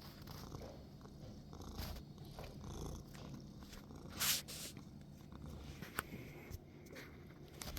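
Domestic cat purring steadily, a low rumble that goes on throughout; about four seconds in a short, loud burst of noise rises over it, and a sharp click comes about six seconds in.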